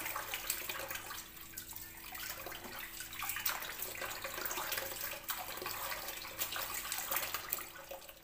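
Water from a tap running into a plastic bowl while hands rub and slosh salted squid in it, with many small splashes: the squid is being rinsed to wash out the salt.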